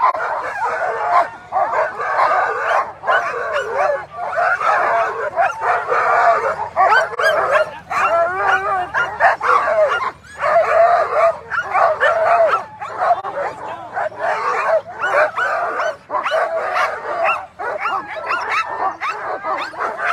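A harnessed team of Alaskan husky sled dogs barking, yipping and howling over one another without pause, fired up and eager to run before the race start.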